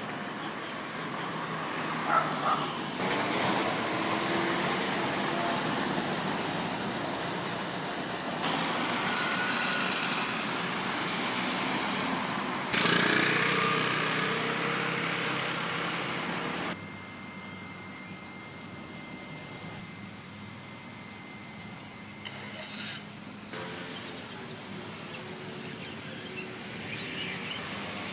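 Outdoor town street ambience with car traffic, in a run of short clips that change abruptly every few seconds; the sound drops to a quieter background after about the middle.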